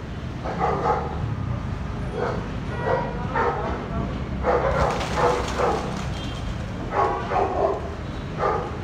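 A dog barking over and over in short barks, over a steady low rumble.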